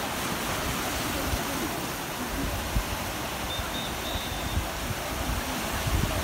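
Small sea waves washing and splashing against a rocky beach, with wind buffeting the microphone.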